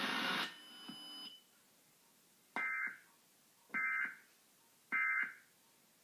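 Emergency Alert System end-of-message (EOM) code: three short electronic data signals about a second apart, marking the end of the Required Monthly Test.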